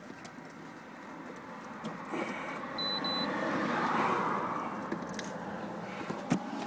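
Rustling and knocking of hands working an OBD-II code reader's plug into its port under a dashboard, handled close to the microphone. Two short high beeps come about three seconds in.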